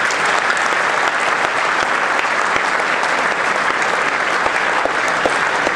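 Audience applauding steadily, a dense run of clapping.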